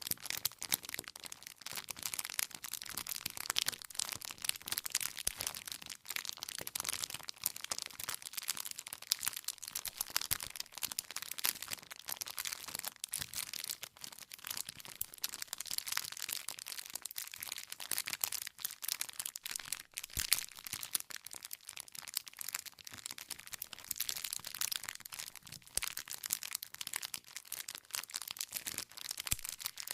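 Wood fire burning with continuous dense crackling and frequent small pops as the burning wood snaps.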